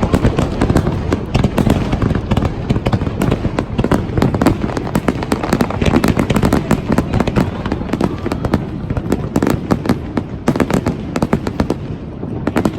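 Aerial fireworks going off in a dense, rapid barrage: continuous crackling and popping over low booms.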